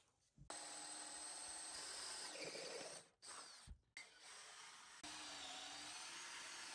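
Cordless drill boring holes through a wooden 4x4 post, the motor running steadily with the bit cutting into the wood. It starts about half a second in, breaks off briefly about three seconds in, then runs again.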